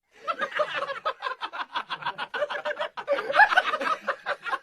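Person laughing in a quick, rhythmic run of short voiced bursts, several a second, without stopping.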